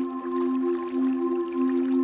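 Calm new-age music, a held chord that stays steady, with faint water dripping over it.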